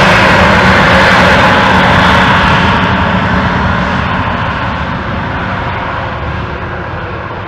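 Airbus A320neo jet engines (Pratt & Whitney geared turbofans) running at high power as the airliner rolls down the runway. A loud roar with a steady low hum, fading steadily from about two seconds in as the jet moves away.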